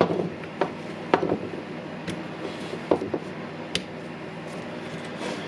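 Light clicks and taps of small plastic and metal rotary hammer parts being handled and fitted during reassembly, about six at irregular intervals.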